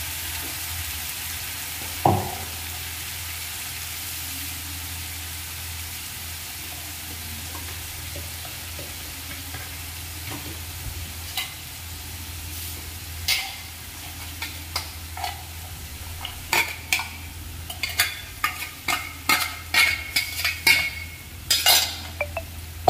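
Onion-tomato masala paste sizzling steadily in hot oil in a steel kadhai while it fries down. There is a single sharp clink about two seconds in, and in the second half a quickening run of sharp clicks and pops.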